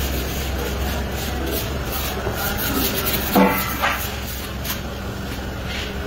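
Kitchen work noise: a steady low rumble under the rubbing and handling of flatbread dough in dry flour. Two short, sharp knocks come about three and a half seconds in.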